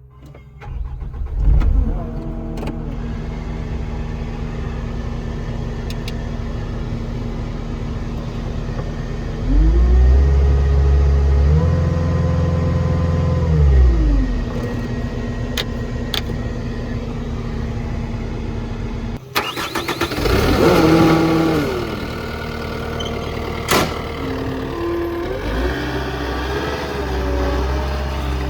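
Caterpillar 279D3 compact track loader's diesel engine starting about a second in and settling to a steady idle. The engine then revs up, holds, and drops back to idle. Past the middle the sound changes abruptly to shifting, wavering whines, and near the end the engine revs up again.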